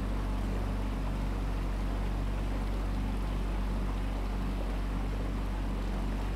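Motorboat engine running steadily as the boat cruises along a canal, a low, even hum with a constant rushing noise over it.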